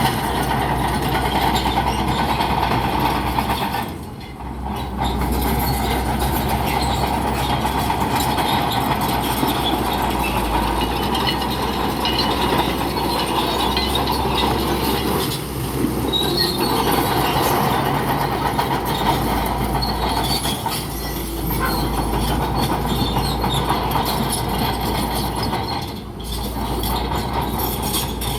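A bulldozer working: its diesel engine runs steadily under the clatter of its steel tracks. The sound dips briefly a few times.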